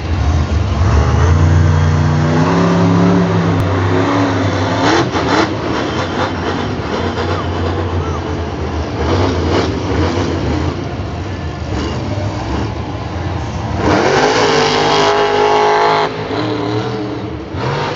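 Monster truck's supercharged V8 running hard and revving on a freestyle run, with a steep rise in revs about fourteen seconds in that is held high for a couple of seconds.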